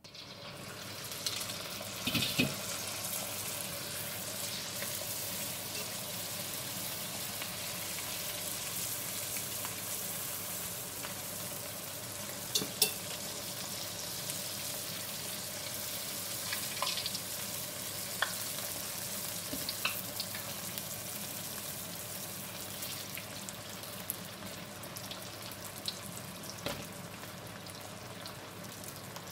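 Rice-paper spring rolls deep-frying in a wok of hot oil: a steady sizzle with scattered sharp pops.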